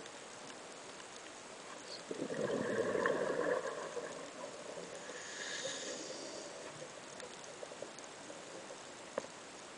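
Scuba diver's regulator breathing underwater: a bubbling exhalation about two seconds in, lasting over a second, then a hissing inhalation around five to six seconds. A sharp click near the end.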